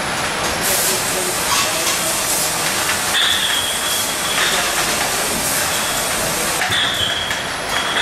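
Automatic chocolate-cream filling machine running: a steady mechanical clatter with short sharp hisses of compressed air, and a high steady tone held for about a second, twice.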